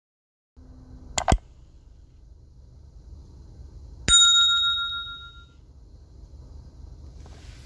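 Sound effects of a subscribe animation: a quick double click, like a mouse click, about a second in, then a single bright bell ding a little after four seconds in that rings out and fades over about a second and a half.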